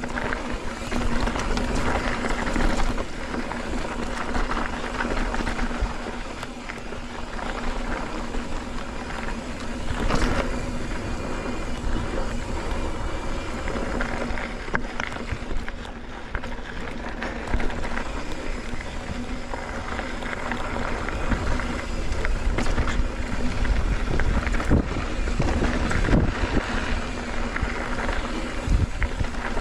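Mountain bike rolling over a dirt trail: a steady rumble of tyres and frame with short knocks and rattles over bumps, and wind buffeting the microphone.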